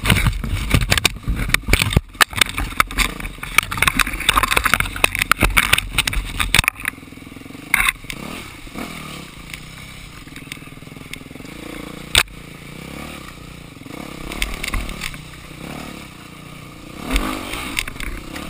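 Off-road dirt bike riding: for the first several seconds a loud, rough clatter and rumble as the bike jolts over wet, rough trail, then the engine drops to a quieter, steady low running note with a couple of sharp knocks and a short rev near the end.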